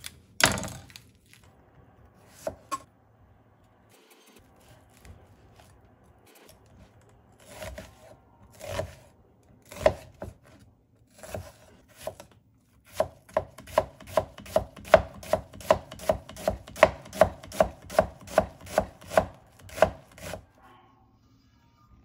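Kitchen knife cutting a yellow onion on a plastic cutting board: a loud first cut, then a few scattered cuts, then fast, even dicing strokes on the board at about three a second that stop shortly before the end.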